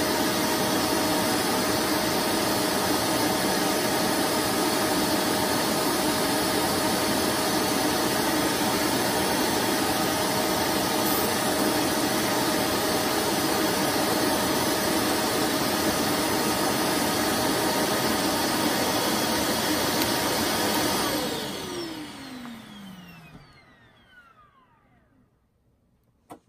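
Vacuum cleaner motor running steadily, then switched off about 21 seconds in and winding down over a few seconds with a falling whine. A single sharp click comes just before the end.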